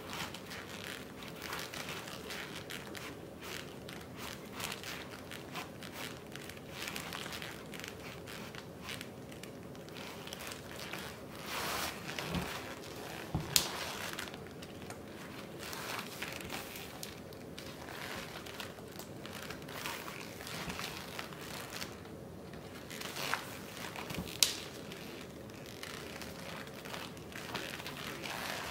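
Laces being pulled through the eyelets of tall red leather 20-hole Steel Ranger boots: steady rustling and crinkling of lace and leather with many small ticks. Two sharper clicks stand out, one about halfway through and one near the end.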